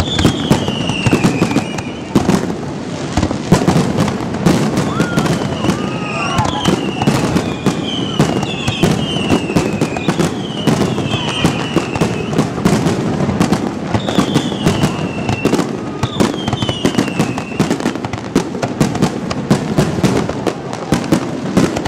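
Aerial fireworks display: a dense, continuous barrage of bangs and crackling. Repeated high whistles run through it, each falling in pitch over about a second.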